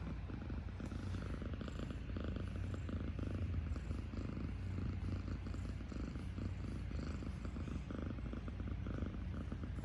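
Kitten purring: a steady, fast, low rumble.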